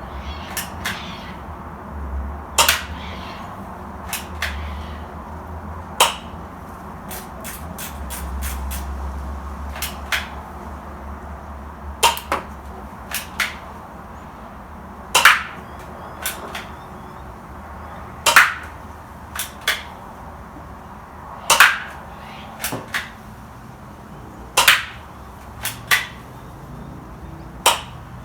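Manual Glock 19 gel blaster being fired shot after shot: a sharp snap about every three seconds, with quieter clicks between the shots.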